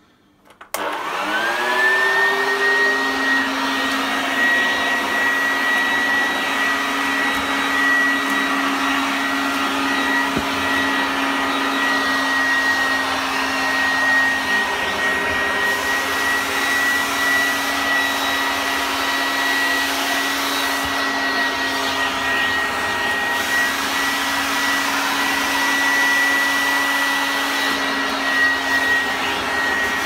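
Hoover Junior U1012 upright vacuum cleaner switched on a second in, its motor whine rising as it spins up, then running steadily. It is in tool mode with the belt off the brush-roll spindle, drawing suction through the hose.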